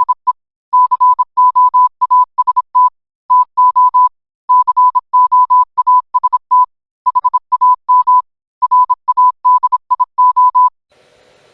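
Morse code sent as a clean tone of about 1 kHz, keyed on and off in short dots and longer dashes grouped into characters, stopping near the end.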